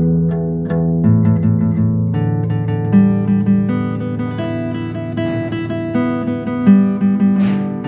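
Background music: a guitar-led instrumental of plucked and strummed notes, with a brief rising swish near the end.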